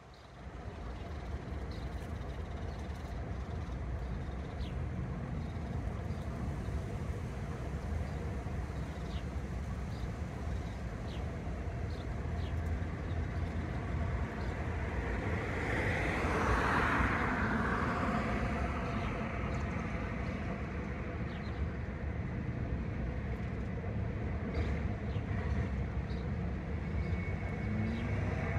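Steady low rumble of road traffic, swelling as one vehicle passes about halfway through, with a few faint short high ticks.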